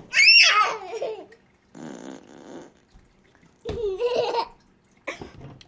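A child's high, falling squeal and laughter, with a short buzzy fart noise from an Amazon Echo Dot smart speaker about two seconds in.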